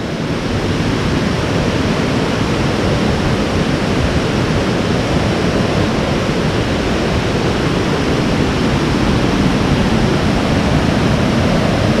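Waterfall cascading down rock steps into a stream, a steady rush of water.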